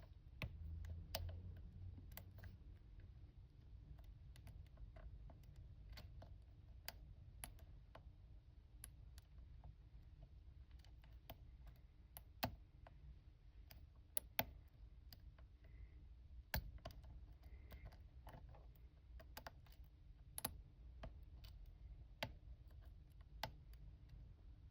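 Faint, irregular small clicks and ticks of a hook pick working the pins of a 30 mm aluminium-bodied Master Lock padlock, tension tool in the keyway, during single-pin picking. A few sharper clicks stand out about halfway through.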